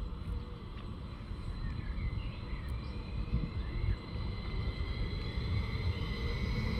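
Two coupled SBB RABe 511 double-deck electric multiple units pulling away and getting louder: a low rumble with a whine that rises in pitch near the end as they accelerate.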